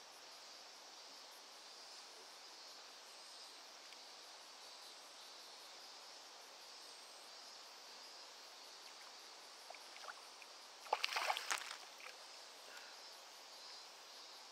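Splashing at the water's surface for about a second and a half, roughly eleven seconds in, from a hooked herabuna (Japanese crucian carp) being brought to the net. A few small splashes come just before it, over a faint steady insect chorus.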